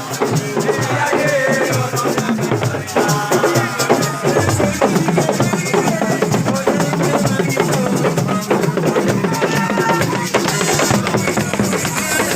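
Loud, fast drumming on asiko drums, with voices singing over the beat.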